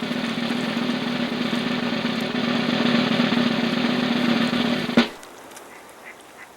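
A drum roll with a steady low tone under it, ending in a single sharp hit about five seconds in, followed by a quiet background.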